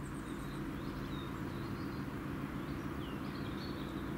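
Outdoor ambience: a steady low hum with a few faint, short bird chirps, about a second in and again about three seconds in.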